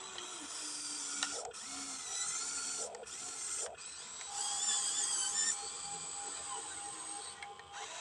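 Small electric motors and gearboxes of radio-controlled construction models whining and grinding, stopping and starting several times, with a louder, higher whine about four to five and a half seconds in.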